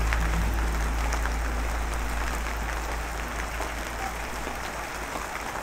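Steady rain, an even hiss with scattered small drop ticks. Background music cuts off within the first half second, and its low bass fades away over the next few seconds.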